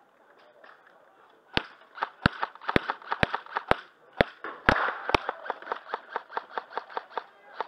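Airsoft gunfire in a close-range exchange: about eight sharp cracks roughly half a second apart start about a second and a half in, then a faster run of lighter clicks.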